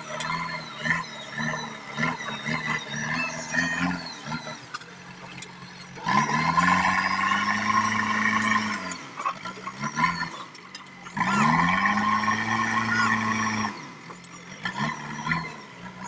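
JCB 3DX backhoe loader's diesel engine running, revving up twice under load for two or three seconds each time, about six and eleven seconds in, as the front bucket digs and lifts gravel; in between it runs lower and uneven.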